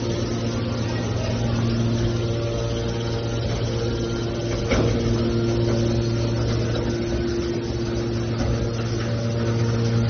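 Automatic hydraulic metal baler running: a steady low motor hum with a higher pump tone that fades and returns every few seconds, and one sharp knock a little under five seconds in.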